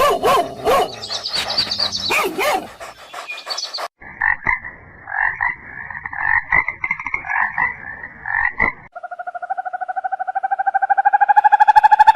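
Animal calls in three short clips. First come wavering pitched cries mixed with clicks, then a run of short repeated calls, then a fast pulsing trill that rises slowly in pitch and grows louder over the last few seconds, like a frog's croaking call.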